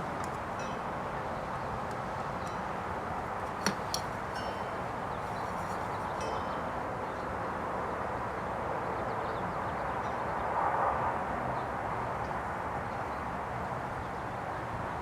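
Steady background noise of an outdoor work area, with two sharp clicks close together about four seconds in and a few faint ticks, like small parts or tools being handled.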